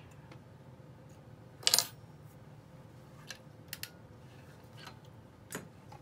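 A sharp metallic clink with a brief ring about two seconds in, then a few light clicks, as a pouch with a metal zipper and metal zipper pulls is handled and set on the sewing machine bed.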